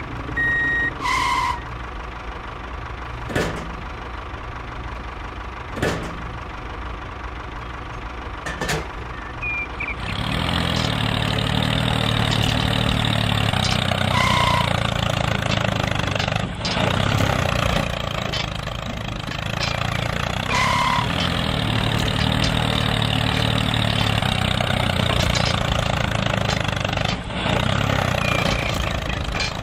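Toy tractor running with a steady mechanical engine-like drone that starts about ten seconds in, as the bulldozer-blade tractor pushes soil. Before that there is a quieter hum with a few sharp clicks, and a few short beeps sound now and then.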